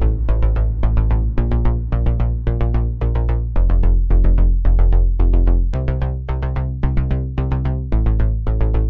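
Electronic dance music with a steady beat: quick repeated synthesizer notes over a deep bass line that shifts pitch every second or two.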